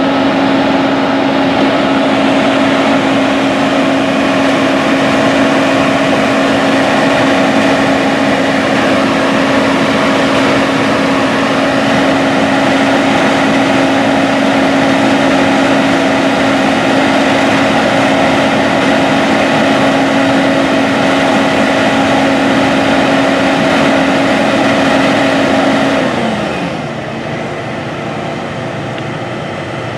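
Tracked John Deere S780 combine running steadily at high speed, a loud even hum with a strong steady tone. About 26 seconds in, the pitch glides down and the sound gets quieter as the machine drops to a lower speed.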